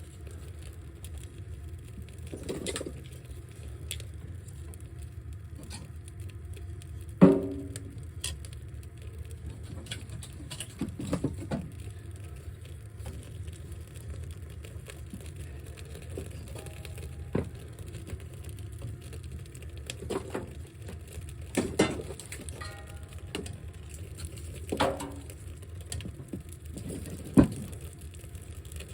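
A handful of scattered knocks and clunks of gear being handled in a small tent, a few of them with a short ring, over a steady low rumble. The loudest knocks come about seven seconds in and near the end.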